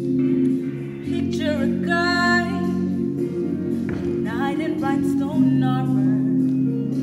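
A girl singing a solo with a wavering vibrato over a steady accompaniment of held chords, in two sung phrases: one starting about a second in and another past the middle.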